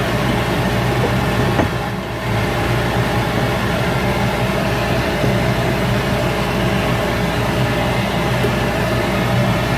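Shop Fox W1836 midi wood lathe running steadily, its motor humming under a constant hiss, with a brief dip in level about two seconds in.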